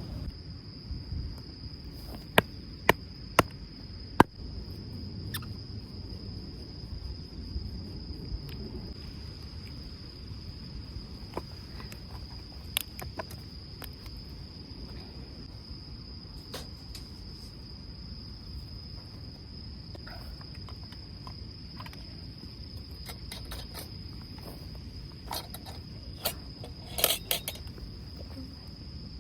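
Crickets chirping in a steady, unbroken high trill over a low rumble of wind, with scattered sharp clicks and knocks of handled gear: four loud clicks a few seconds in and a clattering cluster near the end.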